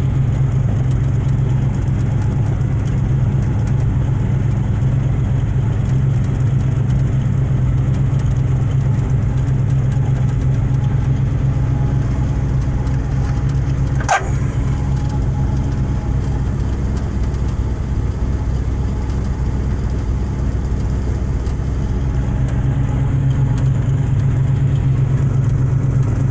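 Rat rod's engine idling steadily, with a single sharp click about halfway through.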